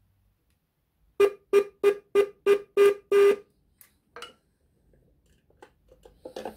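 Motorcycle disc horn on a Honda CB750K sounding in seven short beeps, about three a second, the last few slightly longer, with one weaker beep a second later. A few light clicks follow.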